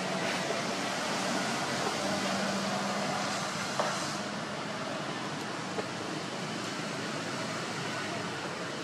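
Steady outdoor background noise with a faint low hum, and two small clicks about four and six seconds in.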